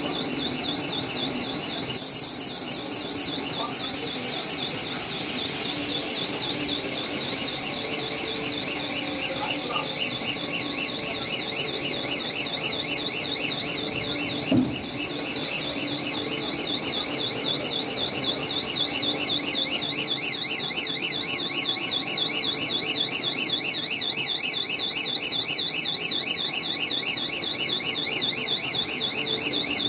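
A high-pitched warbling alarm tone, wavering up and down several times a second without a break, over the steady hum of a PE stretch film production line. A single thump about halfway through.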